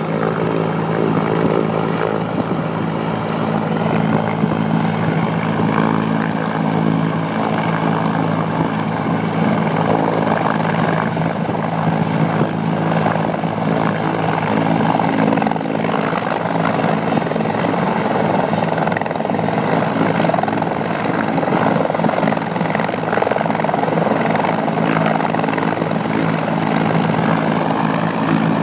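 Military helicopter hovering low with a sling load of sandbags: a steady drone of rotor and engine made of several low, even tones, with a thin high whine on top.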